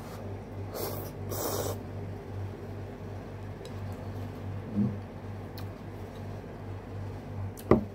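Noodles slurped in two quick sucks about a second in, over a steady low hum; a single sharp tap sounds near the end.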